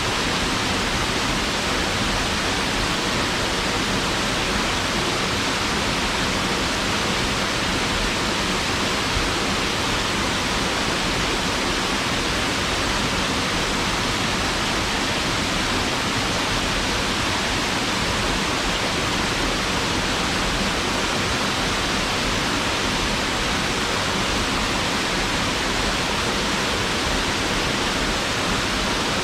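Waterfall: water falling and splashing into a pool, a steady, unbroken rush of white noise with no other sounds standing out.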